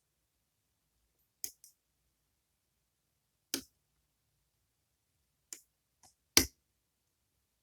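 Sharp, separate metallic clicks from a pin-tumbler lock and lock-picking tools being handled, about six in all, spaced irregularly and louder near the end.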